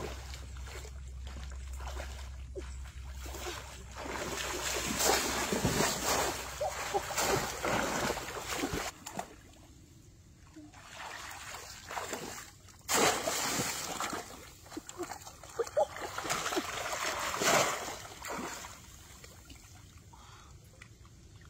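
Muddy pond water splashing and sloshing as a person wades through it, in surges a few seconds long with quieter stretches between.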